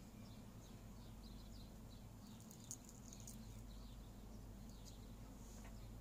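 Near silence: quiet room tone with a low hum and faint, short, high chirps several times a second, and one small click a little under three seconds in.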